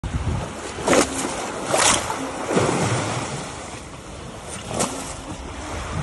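Lake water lapping and splashing against the shore and pier pilings, with several louder splashes over a steady wash.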